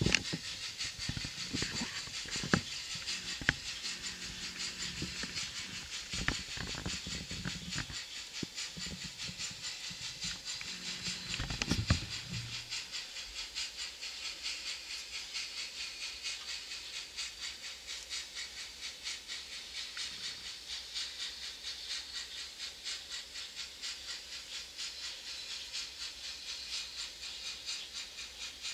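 Sound-decoder chuffing of an N-scale model steam locomotive: a steady, rhythmic hissing exhaust beat. For the first twelve seconds knocks and a low hum run under it, ending with a sharp knock about twelve seconds in.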